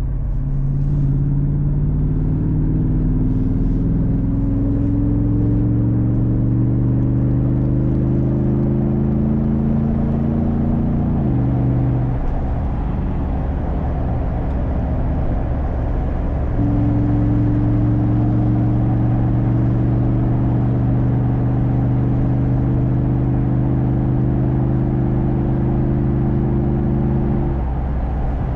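Freshly rebuilt Hemi V8 of a Jeep SRT8 pulling under hard acceleration, its note climbing steadily for about ten seconds before dropping abruptly. After a few seconds of broad road and engine drone, it settles into a steady note at constant revs, which falls away again near the end.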